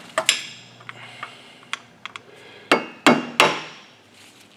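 Hammer striking a screwdriver wedged under a wheel hub's center cap to pry it off. The strikes are sharp and ring like metal: two near the start, a few light taps, then three hard strikes about three seconds in.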